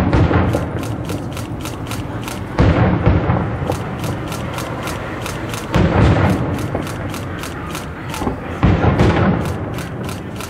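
Fireworks shells bursting in heavy booms about every three seconds, four in all, each echoing away. Between the booms comes a rapid, even crackle of sharp ticks.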